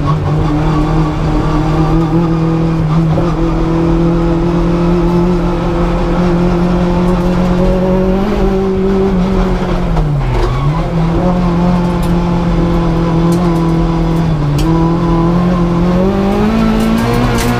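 The tuned Suzuki G13B 1.3-litre four-cylinder of a Suzuki Swift GTi race car, with individual throttle bodies and a 4-1 exhaust manifold, heard from inside the cabin while driving at fairly steady revs. About ten seconds in, the revs dip sharply and climb straight back. A smaller dip comes a few seconds later, and the revs rise near the end.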